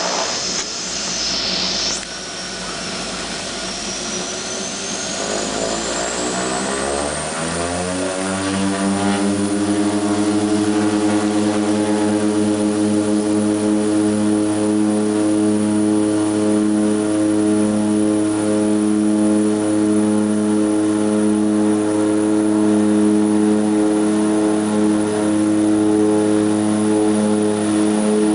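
de Havilland Canada DHC-6 Twin Otter's two PT6A turboprop engines heard from inside the cockpit, power coming up for takeoff: a high turbine whine and the propeller drone rise in pitch and loudness over the first several seconds, then hold steady at takeoff power through the takeoff roll.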